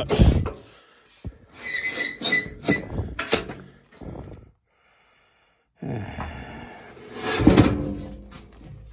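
Sheet-metal squirrel-cage blower housing of an air handler, with its ECM blower motor, scraping, squeaking and clunking against the cabinet as it is slid out, in a string of uneven knocks. About a second of total silence falls midway, and the loudest clunk comes near the end.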